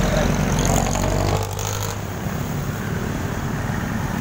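Road traffic. A vehicle engine rumbles low and close for about the first second and a half, then fades, leaving steady traffic noise.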